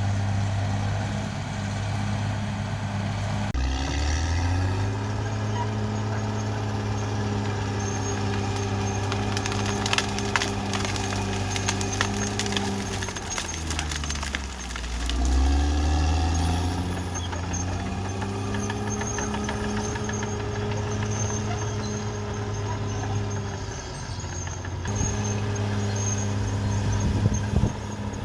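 Caterpillar D6R XL bulldozer's diesel engine working under load. Its pitch sags and recovers about halfway through, and the tracks clank now and then.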